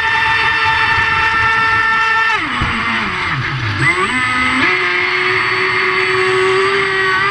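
Motor of a 1.08 m Osprey race boat running flat out with a steady high-pitched whine. About two seconds in the throttle comes off and the pitch falls sharply, then it climbs back up in steps and holds high again.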